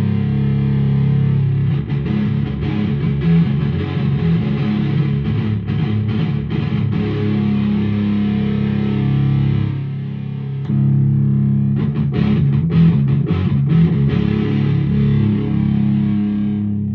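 Electric guitar played through an Evil Twin dual fuzz pedal (a silicon and a germanium fuzz circuit), giving thick fuzz-distorted sustained chords and picked riffs. The playing eases briefly about ten seconds in, picks up again, and starts to fade at the very end.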